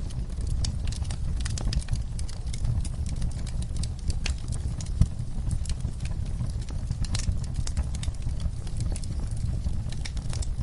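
Wood fire crackling in a fireplace: a steady low rumble of flames under many small crackles and pops, with one sharper pop about five seconds in.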